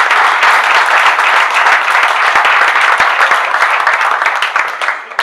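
Audience applauding, a dense stretch of clapping from many hands that tapers off near the end.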